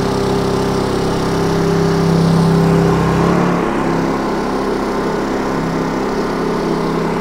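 Two propane-fuelled Honda EU2200i inverter generators running in parallel under heater load. About three seconds in, their engine note drops and settles lower as load is switched off and the inverters throttle down.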